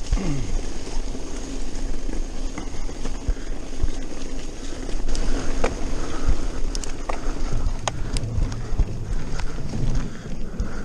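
Mountain bike ridden fast down a dirt forest singletrack: steady rumble of tyres on the dirt with wind on the camera microphone, and scattered sharp clicks and knocks from the bike rattling over bumps and roots.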